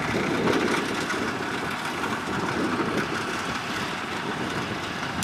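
Kubota DC70 rice combine harvester running steadily, a dense even mechanical noise of engine and machinery.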